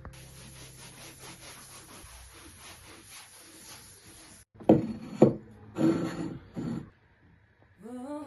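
Scrubbing strokes on a hard surface, quick and even at first, then a few louder, slower rubs past the halfway point.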